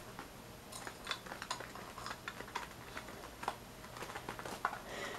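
Pet rats scrabbling at a wooden treat-puzzle block toy, working at its blocks: light, irregular clicks and taps, several a second.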